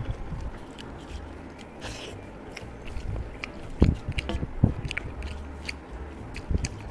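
Close-miked eating sounds: fingers mixing rice with posto on a metal plate and mouth chewing, with scattered small clicks and a couple of louder taps around the middle.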